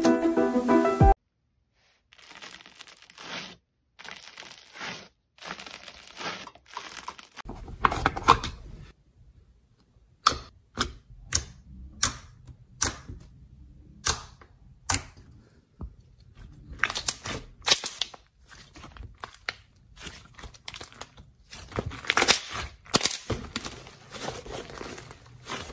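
Slime being pressed, squished and stretched by hand, making sharp clicking pops and crackles, some in quick runs. Background music cuts off about a second in, and rustling comes before the pops.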